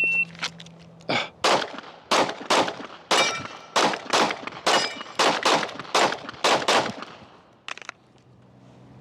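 A shot timer beeps, then a Glock 45 9mm pistol with a compensator fires a fast string of about a dozen shots over roughly six seconds. Some shots carry the brief ring of a steel target being hit. This is a target-transition drill run against the timer, with the last shot at about 6.97 s.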